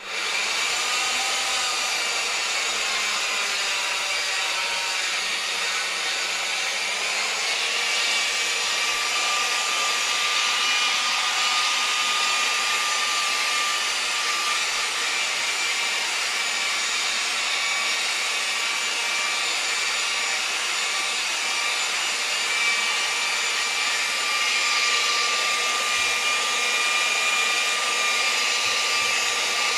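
Handheld electric rotary polisher switched on and running steadily with a high motor whine, buffing the sprayed clear coat on a guitar headstock in the final polishing stage.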